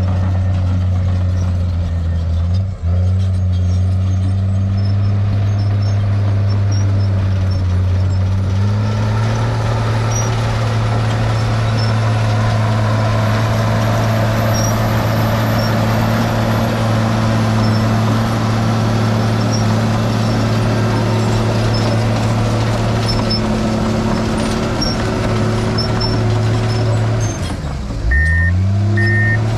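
Bulldozer's diesel engine running steadily under load, its revs stepping up about a third of the way through. Near the end the engine note drops sharply and picks up again, and a reversing alarm starts beeping as the machine backs up.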